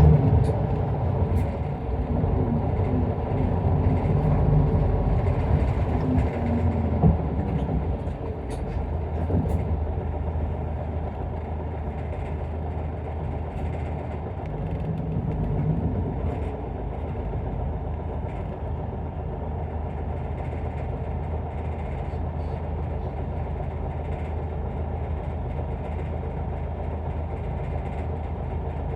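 Isuzu Erga Mio city bus heard from inside the cabin: its diesel engine pulls away and accelerates, the engine note changing through the first seven seconds or so, then the bus runs on at a steady cruise with an even engine and road hum.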